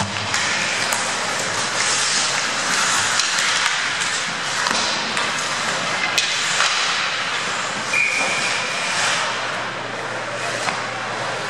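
Hockey skates scraping and carving across the ice in a steady hiss, with sharp clacks of sticks and puck at the faceoff and several times during play.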